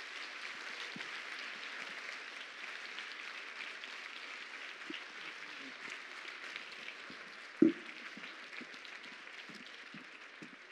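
Theatre audience applauding, a dense, even clapping that slowly dies down. About three-quarters of the way through there is a single dull thump, louder than the applause.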